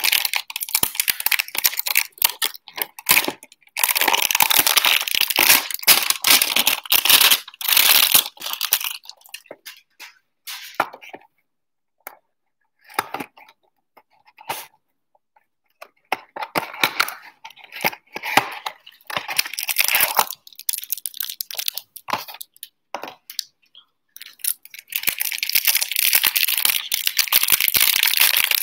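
Plastic wrapping on a trading-card hanger box being torn and crinkled by hand, loud and continuous for the first several seconds. In the middle come sparser crackles and light handling of the cardboard box, and near the end loud crinkling again as the plastic wrapper around the card stack is torn open.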